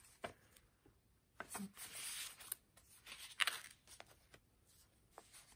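Faint rustling of paper pages being turned and handled in a handmade paper journal, with a few light taps and clicks.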